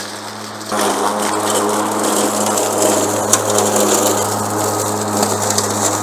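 Mowrator 21-inch battery remote-control lawn mower running with a steady motor hum while it picks up and chops dry leaves and twigs, a dense crackling and crunching that starts about a second in.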